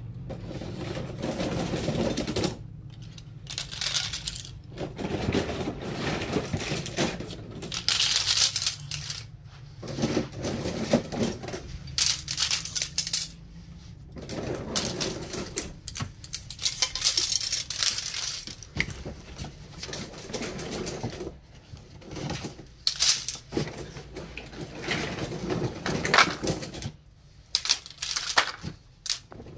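A pile of steel-bladed, plastic-handled scissors clinking and clattering as they are rummaged through and picked up, in irregular bursts of clatter with short pauses between.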